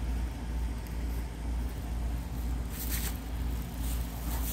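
A steady low rumble, with a brief scratchy scrape about three seconds in as a small dog digs with its head down in a hole in loose clay soil.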